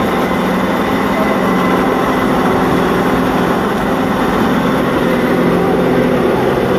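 Engine of an off-road vehicle running steadily as it drives along a dirt track, heard from on board, with a constant even hum.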